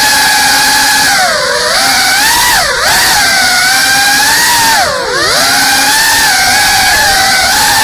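Small FPV drone's brushless motors and propellers whining loudly, heard from the drone's own onboard camera. The pitch dips sharply and recovers three times, about a second and a half, nearly three seconds and five seconds in, as the throttle is eased and punched again.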